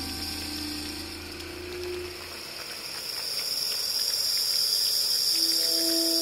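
Electroacoustic ambient music from guitar and a Nord Modular synthesizer. Held tones, one gliding slowly upward, fade out with a low hum about two seconds in, while a steady hiss like rushing water swells up. Near the end a new set of held tones comes in.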